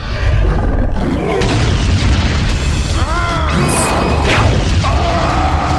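Cartoon fight sound effects: a deep, continuous booming rumble under dramatic music, with a monster's wavering cry about three seconds in and a held cry near the end.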